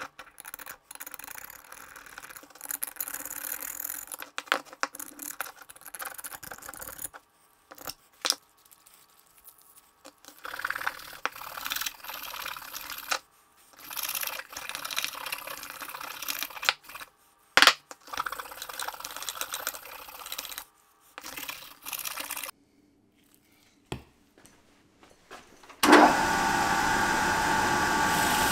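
A steel pick scratching and scraping caked rust and dirt off an old hammer head, in short spells with brief gaps between them. About 26 seconds in, a bench grinder comes in and runs steadily with a whine.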